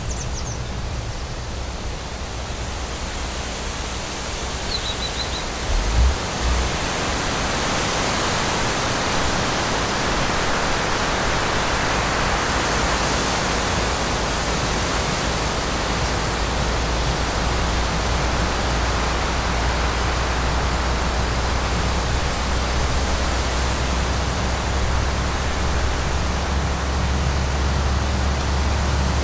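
Steady rushing noise with a low engine rumble, heard from inside a vehicle's cabin; a brief low thump about six seconds in.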